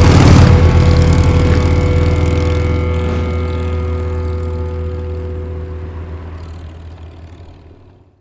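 Rock music ending on a held chord that rings out and fades away to silence.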